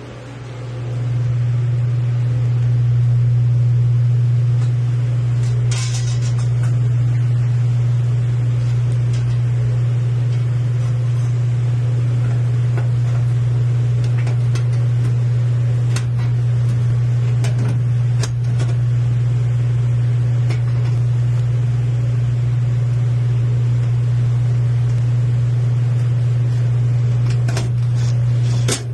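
A steady low hum that swells up about a second in and holds evenly, with a few faint ticks and taps over it.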